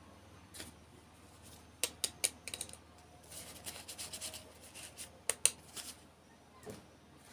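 Hands handling plastic toy packaging: a few sharp clicks and snaps, with a stretch of crinkly rustling in the middle.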